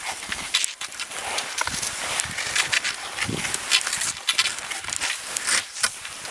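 Snow crunching underfoot as someone walks: a quick, irregular run of crisp crunches.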